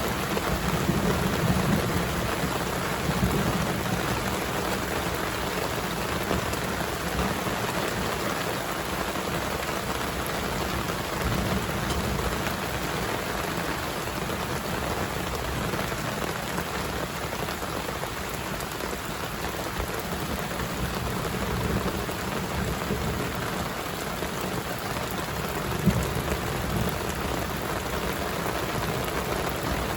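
Steady rain falling, an even hiss with low rumbling swells now and then and one sharp louder hit late on.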